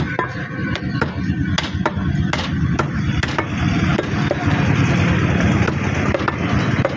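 Ox meat being chopped by a butcher: a series of sharp, irregular chops, about one every half second, over a steady low rumble.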